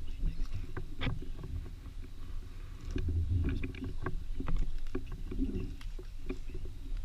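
Irregular soft knocks, clicks and rustles over a low rumble: movement noise from moving through the swamp with a carried action camera.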